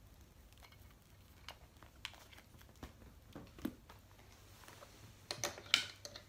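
Scattered small clicks, taps and rustles of a phone and its charger being handled and repositioned, with a quick cluster of louder clicks about five seconds in.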